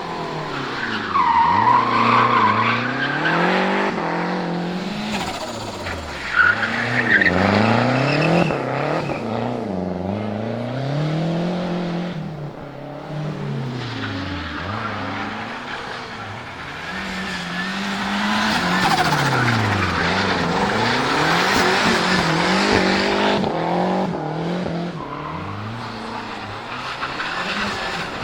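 Turbocharged four-cylinder engine of a 1974 Fiat 124 Spider Abarth revving up and falling back over and over while drifting, with tyres squealing. A sudden sharp crack about six seconds in.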